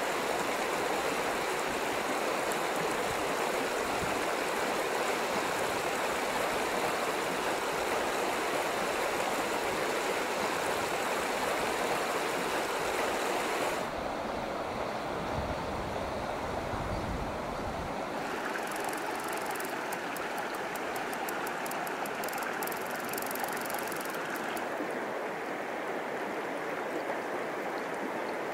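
Clear mountain stream running steadily over its bed, a continuous rush of water. About halfway through the sound changes abruptly to a thinner, lighter rush.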